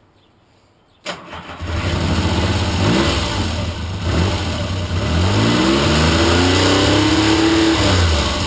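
A Triumph T160 Trident's three-cylinder engine starts about a second in and runs. It is revved briefly once, then held up in a longer rev that drops back to idle near the end.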